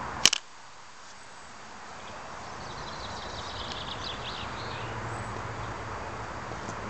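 Kawasaki KX85 two-stroke dirt bike engine running, on a bike the owner says has piston slap. One loud sharp click comes about a quarter second in, after which the sound drops and then slowly builds back up.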